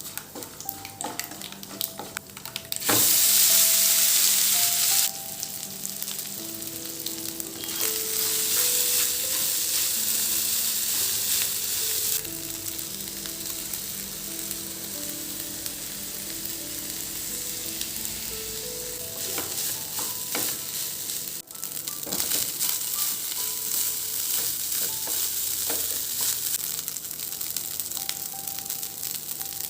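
Food frying in hot oil in a pan, with a steady sizzle and occasional clicks of a utensil stirring against the pan. A much louder burst of sizzling about three seconds in lasts some two seconds.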